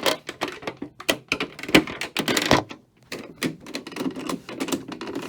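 Hard plastic parts of a Hoover Elite upright clicking and knocking in quick, irregular succession as the hard bag door is worked onto the fill tube.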